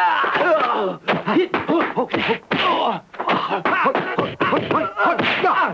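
Fight-scene sound of a martial-arts film: quick punch and kick impact effects mixed with fighters' shouts and grunts, one after another without pause.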